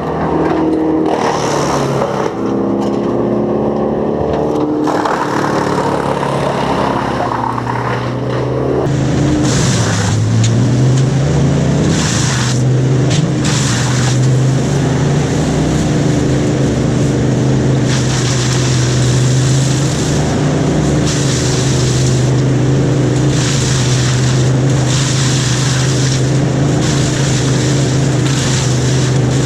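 An engine running under load: its pitch shifts during the first few seconds, rises about ten seconds in and then holds steady, with repeated short bursts of hissing noise over it.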